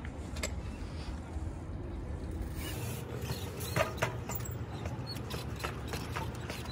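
Street trials bike hopping up onto a concrete bench and balancing along it: a few sharp knocks of the tyres landing and tapping on the concrete, the loudest about four seconds in, over a low steady background rumble.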